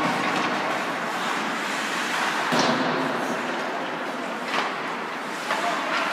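Ice hockey play in a large arena hall: a steady wash of skates on ice and hall noise, with sharp stick-on-puck clacks about two and a half seconds in and twice more near the end.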